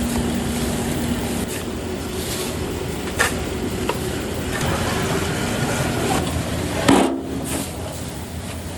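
Steady rumble of factory machinery, with a sharp knock about three seconds in and a louder one about seven seconds in.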